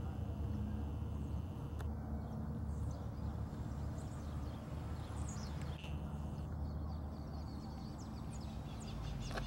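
Steady low wind rumble on the microphone, with small birds chirping a few times in the middle.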